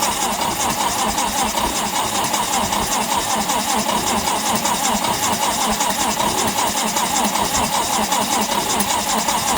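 Lincoln SA-200 welder's engine being cranked over by its starter in freezing cold, turning steadily but not catching. The cranking cuts off abruptly near the end.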